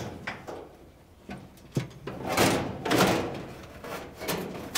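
Dryer front bulkhead scraping and clunking against the cabinet and drum as it is worked into place: a string of short scrapes and knocks, the loudest at the very end.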